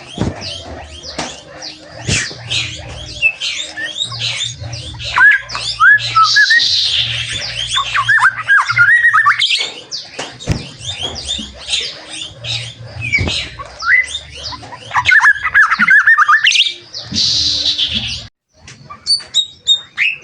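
White-rumped shama (murai batu) singing a fast, varied song of chirps and whistled glides, broken twice by harsh rasping notes. The song cuts off suddenly near the end, leaving a few faint chirps.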